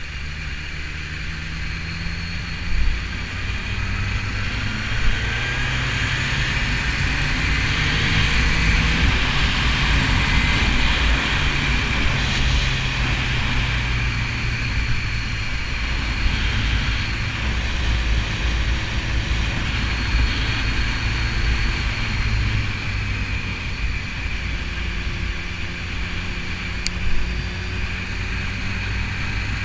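BMW S1000RR inline-four engine running under way, heavy wind noise on the microphone. The engine note climbs over the first several seconds and then rises and falls with speed. There are a few brief knocks.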